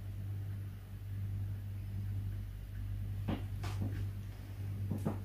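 Quiet room with a low steady hum, and a few faint clicks a little over three seconds in.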